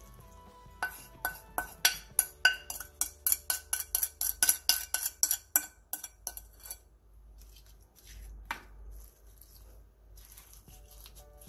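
Wooden spoon scraping and tapping against a ceramic plate, about four quick clinks a second for some six seconds, as soy-sauce brine is poured off the plate into a glass container. A single knock follows later, over soft background music.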